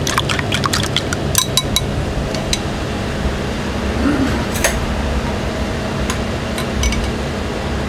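Dishes and glassware clinking: a quick run of light clicks in the first couple of seconds, then a few scattered ones, over a steady low hum.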